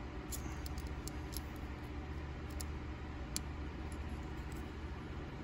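Faint, scattered small metallic clicks of a driver bit and the parts of a Buck Spitfire folding knife being handled while its screws are adjusted, over a steady low hum.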